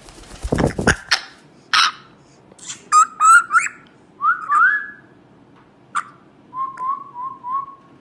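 An African grey parrot lands with a short rush of wingbeats close to the microphone, then gives a run of short whistles and chirps, mostly quick rising glides. It ends in four short whistles in a row.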